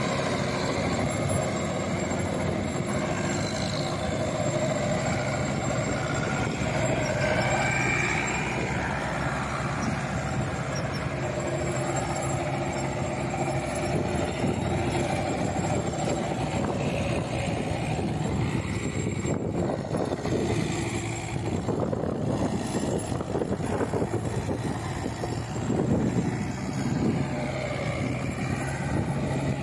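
Mahindra Yuvo 475 tractor's four-cylinder diesel engine running steadily under load while it drives a rotavator through the soil. For several seconds past the middle the even engine note gives way to a rougher, uneven noise, then steadies again.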